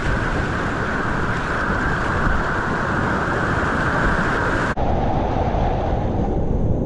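Whitewater rapids rushing loudly and steadily around a kayak in the middle of the rapid. A little under five seconds in, the sound changes abruptly and turns duller.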